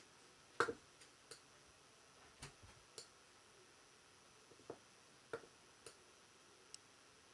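Irregular, faint clicks of a computer mouse and keyboard being used, about ten scattered clicks with the loudest a little over half a second in.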